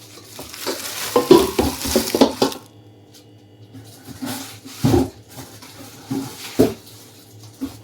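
Stainless steel cooking pots being handled and set against one another: a run of metallic clatter and knocks, then a few single knocks.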